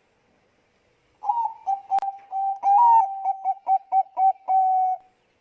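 Zebra dove (Bangkok-strain perkutut) cooing, starting about a second in: a run of short, clipped notes on one pitch, ending on a longer held note. A single sharp click comes about two seconds in.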